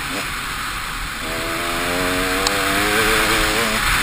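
KTM EXC 300 two-stroke single-cylinder enduro engine under way on a dirt trail, heard from a helmet camera: it eases off for about a second, then picks up and runs on a steady, slightly wavering throttle, with wind rushing over the microphone.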